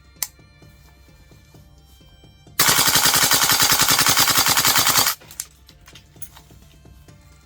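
Airsoft AK-style rifle firing one full-auto burst of about two and a half seconds, a fast, even rattle of shots. A single sharp click comes just before it and a few small handling clicks follow.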